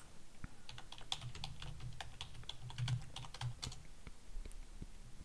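Typing on a computer keyboard: a quick run of keystrokes from just under a second in to near four seconds, with a few stray clicks after.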